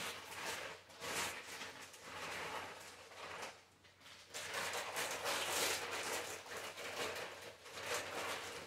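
Plastic water bottles being handled and gathered up: rustling and crinkling with light knocks, busier and louder from about halfway through.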